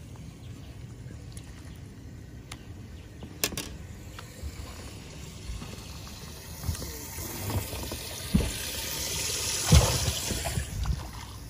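Water splashing and trickling in a fishing boat's livewell, building in the second half, with handling knocks and a sharp thump just before the end as the crappie goes in.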